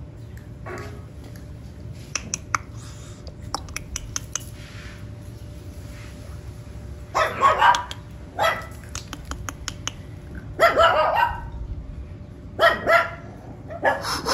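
Miniature Schnauzer puppy barking: short barks, alone or in quick pairs, starting about seven seconds in and coming every couple of seconds. Faint light clicks in between.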